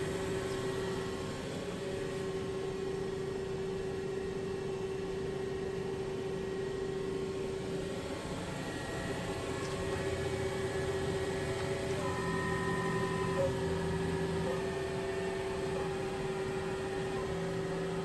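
2007 Kia SKT-15 CNC lathe running under power: a steady machine hum with a constant whine. A second set of higher tones comes in about twelve seconds in and drops away a couple of seconds later.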